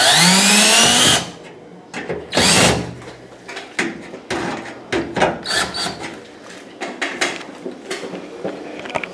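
Cordless drill/driver driving screws into the oven's sheet-metal top flange: the motor whines up in pitch for about a second at the start, then runs again in a short burst about two and a half seconds in. Clicks and light metal knocks follow as screws and the panel are handled.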